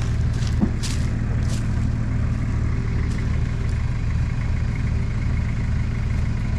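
A four-wheel-drive's diesel engine idling steadily with an even low throb, with a few faint clicks in the first second or so.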